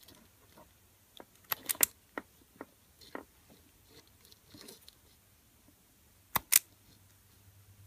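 Hand wire stripper clamping and pulling the insulation off thin fuel-pump harness wires: a scatter of short clicks and snips, the sharpest pair near the end.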